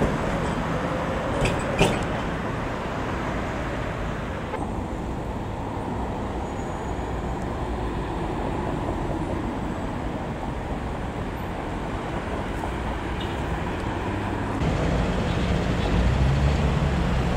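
Steady vehicle running noise, with two sharp clicks about one and a half to two seconds in. The hiss in the higher range drops away abruptly about four and a half seconds in, and a lower rumble grows louder near the end.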